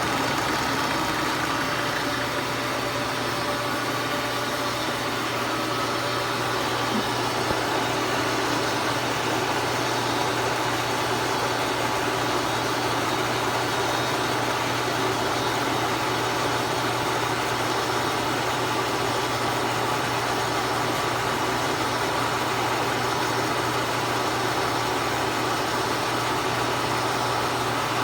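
Brown & Sharpe 3A universal milling machine running a five-flute carbide inserted face mill at 325 RPM, taking a steady cut across the saw-cut end of a bar under power table feed and spitting chips. The machine's drone and hum stay even throughout.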